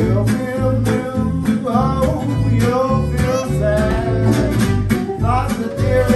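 Live acoustic swing band: a violin carries the melody with vibrato over steady strummed acoustic guitar chords and moving low notes.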